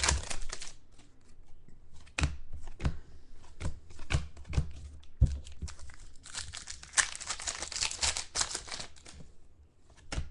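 Plastic trading-card pack wrapper crinkling and tearing, busiest for a few seconds in the second half, with scattered sharp clicks of cards being handled.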